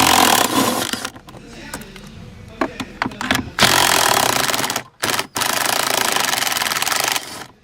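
Cordless electric drill spinning a 10mm socket to back out the screws holding the shifter assembly, in three runs with clicks between them; the last run lasts about two seconds.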